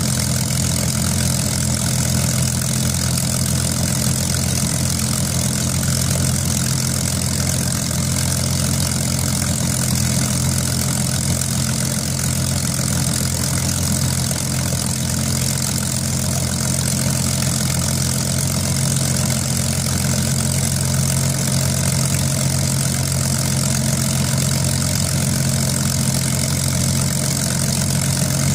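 Supermarine Spitfire's V12 piston engine idling steadily, its propeller turning.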